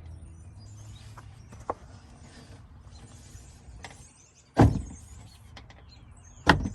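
Faint handling clicks, then two loud sharp knocks about two seconds apart in the second half: the window glass being pulled down onto the new window regulator's clips inside a Dodge Caravan door until they snap into the holes in the glass.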